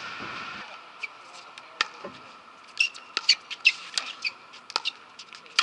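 Pickleball paddles striking the plastic ball in a rally: a series of sharp pops, coming in quick succession in a fast exchange about three to four seconds in. A steady background hiss stops about half a second in.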